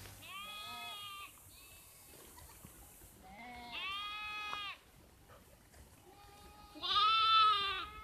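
Sheep bleating in a grazing flock: three long bleats of about a second each, the loudest near the end, with a fainter one between the first two.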